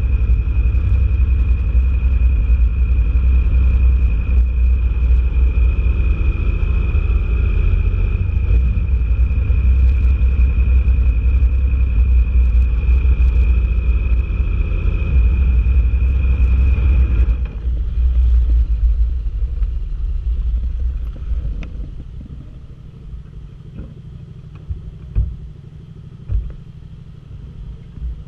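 Motorcycle riding at low speed: a loud low rumble of engine and wind with a steady high whine over it. About two-thirds of the way through it eases off as the bike slows and stops, leaving the engine idling quietly with two sharp knocks near the end.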